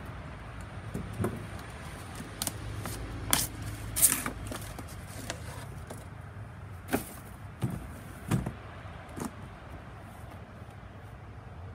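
Hard plastic nail gun case and its packaging being handled and opened: irregular clicks, knocks and clatter, the two loudest knocks about three and four seconds in, a few more around the middle.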